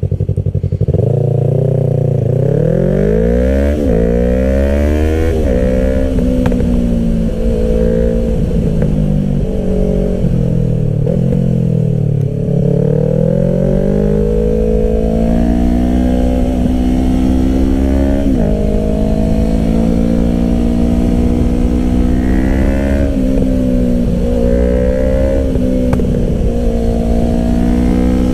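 Yamaha R3's 321 cc parallel-twin engine through an M4 Street Slayer exhaust with the baffle in, heard from the bike while riding. The pitch climbs under throttle and drops sharply at each gear change, falls slowly as the bike slows about ten seconds in, then climbs again.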